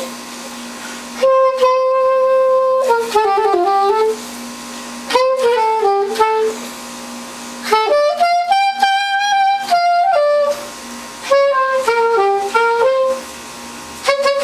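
Soprano saxophone playing a melody in short phrases, with pauses of about a second between them and one longer high note held near the middle. A steady low hum carries on through the pauses.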